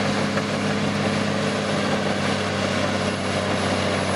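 Heavy engine running steadily with a fast low throb, an added sound effect for the toy bulldozer.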